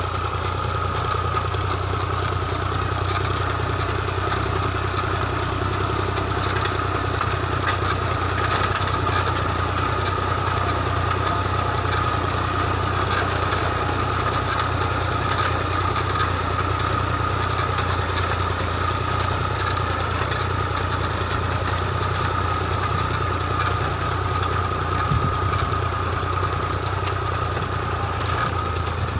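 New Holland Ghazi tractor's diesel engine running steadily.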